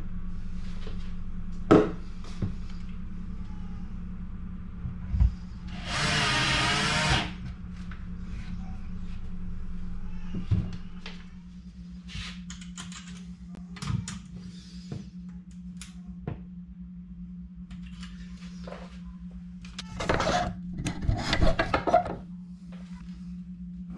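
Tool and handling noise while shelf brackets are fitted to a wall: a sharp click, a whir of about a second some six seconds in, and scattered small taps, over a steady low hum. Near the end come a run of knocks and rubbing as the camera is handled.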